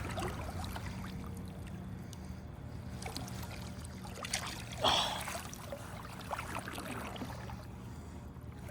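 Flowing river water with a steady low rumble and scattered small splashes, and one louder, sudden splash-like sound about five seconds in.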